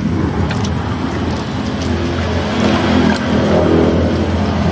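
A motor engine running steadily with a low hum, growing louder about halfway through.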